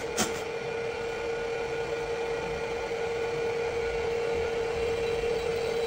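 Drill head of a CWT crankshaft balancing machine running with a steady hum, its twist drill boring into a crankshaft counterweight to remove weight and correct the imbalance.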